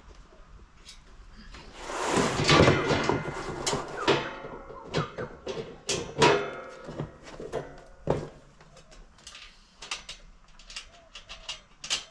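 Small metal nuts and bolts rattling and clinking as they are sorted by hand for assembly, loudest a couple of seconds in, followed by scattered clicks and knocks as the parts are handled.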